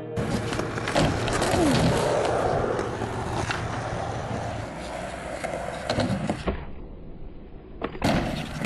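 Skateboard wheels rolling on concrete, with several sharp clacks of the board hitting the ground.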